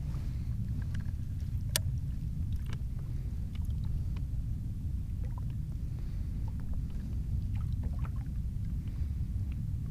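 Steady low rumble of water and wind around a kayak at sea, with scattered light clicks and knocks and one sharp click about two seconds in.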